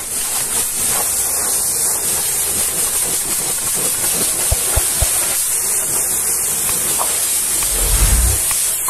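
High-pressure washer jet spraying water onto a truck's rubber tyre and aluminium wheel, rinsing off foam: a steady loud hiss. A brief low rumble near the end.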